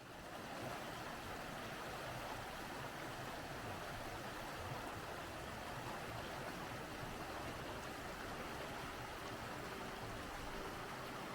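Steady rushing of a flowing stream, fading in at the start.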